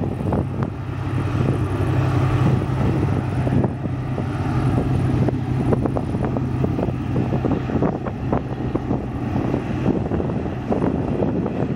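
Steady low engine drone of a Raketa hydrofoil running at speed on its foils, with wind buffeting the microphone in gusts.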